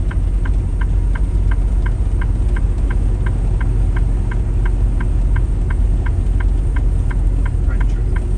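Steady low engine and road rumble inside a semi-truck cab, with a steady light ticking about three times a second over it.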